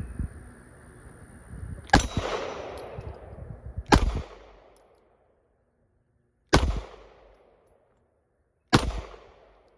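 Four single shots from a Springfield Hellcat 9mm pistol, fired at uneven intervals of about two seconds. Each crack dies away over about a second.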